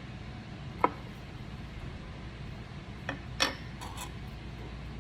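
A few light clicks and taps of small metal hand tools handled at the jeweler's bench: one sharp tick about a second in, then a short cluster of taps a little past three seconds, over a steady low hum.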